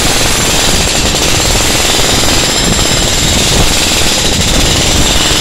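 RYU RDH 50 electric demolition hammer running continuously, its chisel bit striking in very rapid blows as it breaks up a concrete floor slab.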